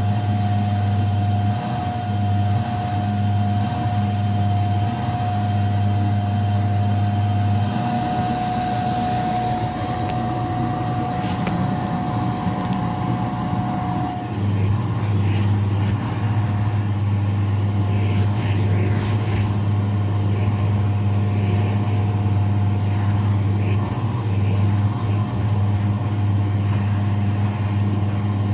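Vacuum cleaner running on shag carpet with a steady motor hum and a thin high whine. For several seconds near the middle the hum turns rougher and noisier, and the whine drops out partway through.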